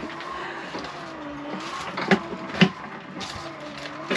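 Objects knocking in a sailboat galley as the cupboards are cleared out, with two sharp knocks about two seconds in. Under them runs a steady mechanical hum whose pitch slowly wavers.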